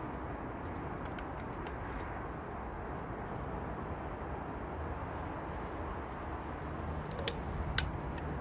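Steady outdoor background rumble with a few sharp plastic clicks. Two of the clicks come close together near the end, as the clips of a fuel pump module's plastic housing are worked into place by hand.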